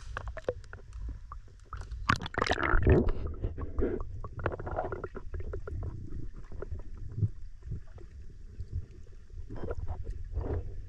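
Muffled sound of water around a camera at and below the surface: a steady low rumble with several louder bursts of sloshing, the loudest about two to three seconds in and another near the end.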